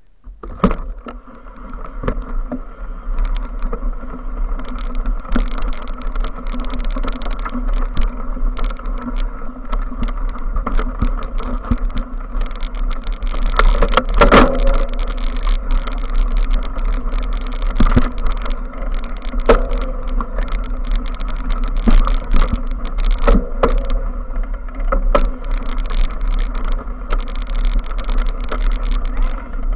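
Mountain bike ridden over a bumpy grass track, heard from a camera mounted on it. Wind rumbles on the microphone throughout, and the bike and mount rattle and knock at each bump.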